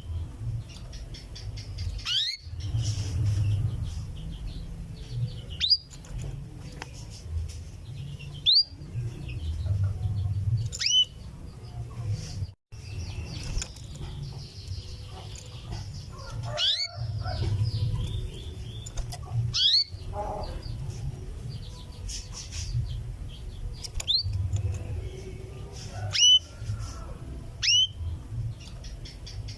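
Female canary giving its 'cuwit' contact call, the call a hen uses to summon a male: short rising chirps repeated every few seconds over a low background rumble.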